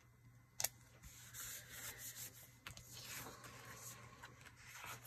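Paper planner pages sliding and rubbing against each other on a tabletop, a soft rustling rub, with one sharp tap just over half a second in.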